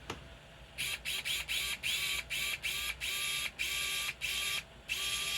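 Small electric screwdriver run in short trigger pulses, driving a screw into the TRX4 chassis: about a dozen brief whirs, roughly three a second and getting longer, starting about a second in, each with the motor's pitch rising as it spins up.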